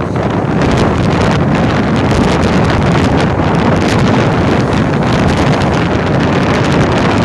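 Storm-force wind buffeting the microphone: a loud, continuous low rumble with crackling gusts.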